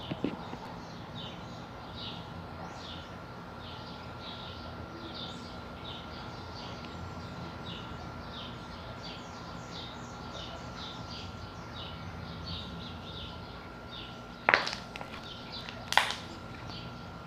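Slime being squeezed and worked by hand, with a steady run of small, high chirping squeaks, then two sharp bubble pops a second and a half apart near the end. It makes bubble pops, but not many.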